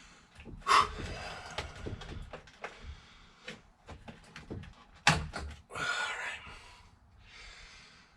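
Clicks and knocks of hands working a stiff wiring plug in a car's steering wheel hub, with two sharp knocks, one near the start and one about five seconds in.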